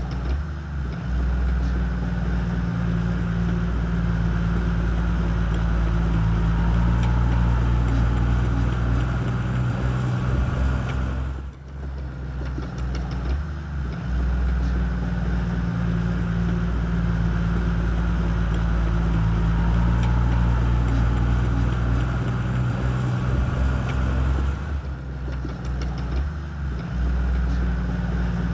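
Shantui crawler bulldozer's diesel engine running steadily under load with a deep low drone, dropping away briefly about twelve seconds in.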